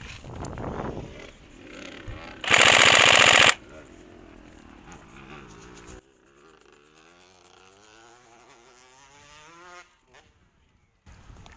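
Electric airsoft rifle firing one full-auto burst of about a second, a fast, even mechanical clatter, and by far the loudest sound here. After about six seconds the sound drops to a faint, wavering pitched drone that rises slightly and then cuts off.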